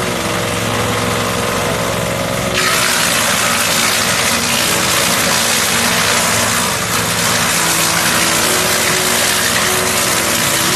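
Garden tree shredder-chipper machine's engine running steadily; about two and a half seconds in, a loud hissing rush joins in over the engine and continues.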